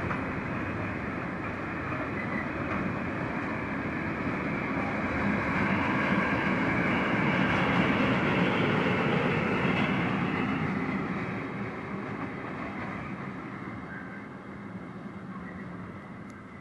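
Freight train passing on the rails, its wagons' wheels rolling continuously. It grows louder toward the middle and then fades as it moves away.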